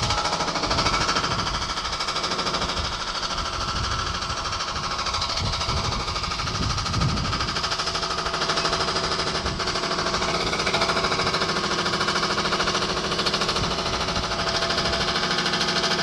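Demolition breaker hammer pounding masonry in rapid, steady blows as a building is torn down.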